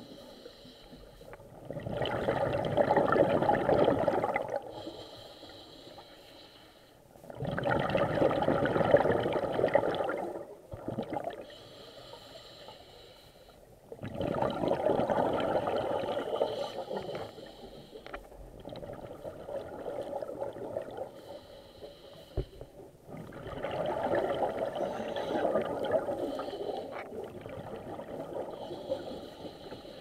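A diver breathing underwater: each exhale sends out bubbles that gurgle for two to three seconds, about every six seconds, with quieter inhales between.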